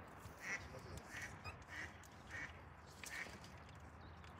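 A duck quacking faintly and repeatedly, one short call about every half second or so.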